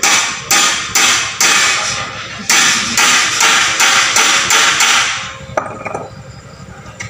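Hand hammer striking steel bars, about ten sharp blows at roughly two a second, each ringing briefly, with a short pause about two seconds in; the blows stop about five seconds in.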